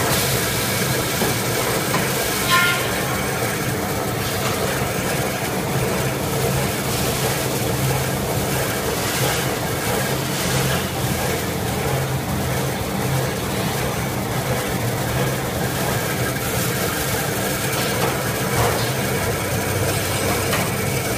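Small band-saw toilet paper roll cutting machine running: a steady mechanical hum and rattle of its timing-belt feed and band saw cutting paper logs into rolls. A brief sharp sound about two and a half seconds in.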